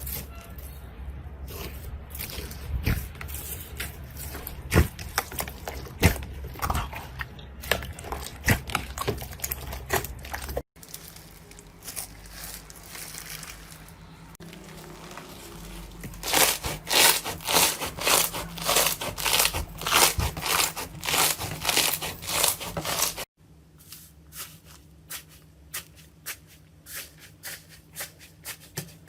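Slime being squished and poked by hand, in three separate takes: sticky crackling with rapid clicks and pops, densest and loudest in the middle take.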